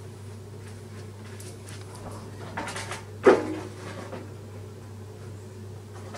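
The split plastic tub of a Samsung washer-dryer being pulled apart by hand: a few light scrapes, then a sharp plastic knock about three seconds in as the halves come loose.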